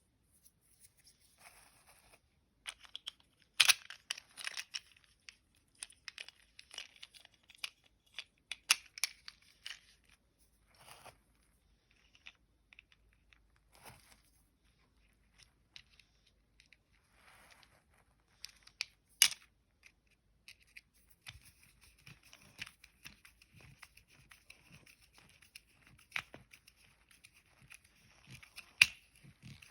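Close handling noise: crinkly rustling and tearing sounds mixed with scattered sharp clicks of small objects, a few of them much louder, and a longer stretch of steady rustling near the end.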